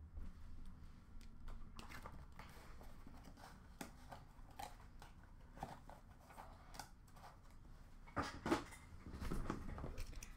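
Faint handling sounds in a small room: scattered light clicks and knocks of cards and cardboard card boxes being moved on a counter, with a few louder knocks about eight seconds in as a box is picked up.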